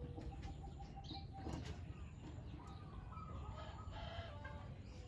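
Birds chirping and calling over a steady low rumble, with a single click about a second and a half in.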